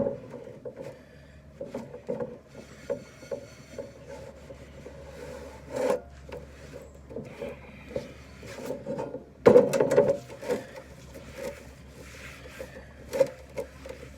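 Irregular rubbing and light knocks of a cast iron pan being handled, with a louder clatter about nine and a half seconds in.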